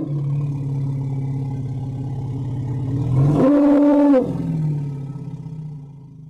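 Elephant calling: a long, low, steady call that jumps to a louder, higher-pitched blast for about a second in the middle, then drops back low and fades out.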